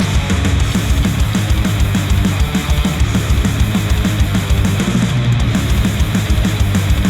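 Loud, heavy rock music with a driving beat, played back through headphones and picked up by microphones at the earcups.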